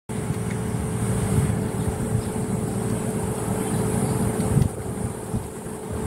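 Wind buffeting the phone's microphone: an uneven, gusty rumble that eases a little near the end, with a steady hum under it.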